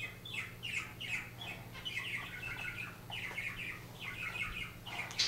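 A bird chirping repeatedly, short falling chirps at about three a second.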